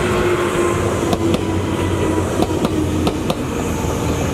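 Jōmō Electric Railway 700-series electric train passing close by with a steady hum. Its wheels click over the rail joints, several of the clicks coming in quick pairs as each bogie crosses.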